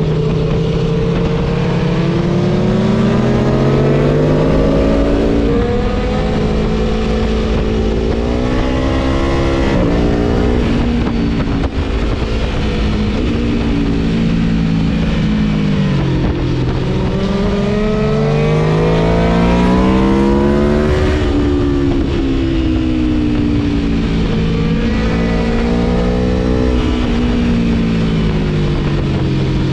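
Aprilia Tuono V4 1100 engine under hard riding, its revs climbing and dropping repeatedly as it accelerates and backs off, over steady wind noise.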